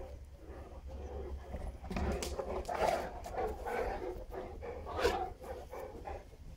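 Neapolitan mastiffs growling in a run of rough bursts, loudest from about two seconds in to just past five seconds.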